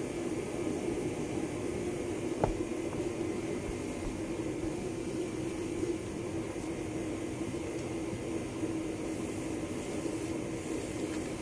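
Steady mechanical hum and hiss, with one sharp click about two and a half seconds in.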